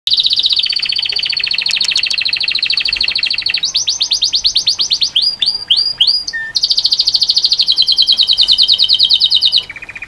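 Male domestic canary in full song: a chain of rapid trills, each a fast run of one repeated note, switching to a new pitch and speed every second or two, with a few separate upward-sweeping notes about halfway through.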